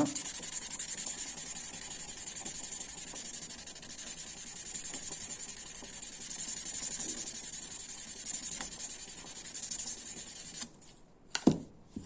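Fine 800-grit sandpaper rubbed by hand quickly back and forth over the translucent plastic scales of a Victorinox pocket knife, a steady fine scratching hiss, smoothing the scales after the printed logo has been sanded off. The rubbing stops about a second before the end, followed by a single sharp tap, the loudest sound here.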